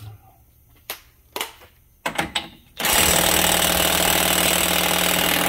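A few light knocks as the socket is fitted, then, nearly three seconds in, a DeWalt cordless impact wrench hammering steadily on a 36 mm socket, breaking loose the front axle nut.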